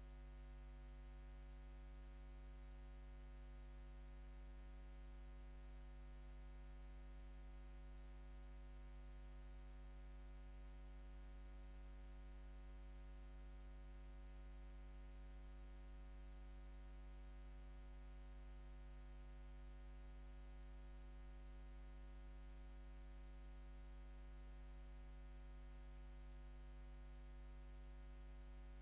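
Near silence: a steady, unchanging low electrical hum with a faint high whine.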